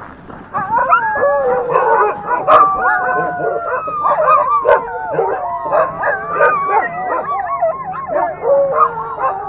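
A harnessed sled dog team howling, yipping and barking all together in a dense, overlapping chorus that breaks out about half a second in: the dogs are eager to run. A few sharp clicks cut through the chorus.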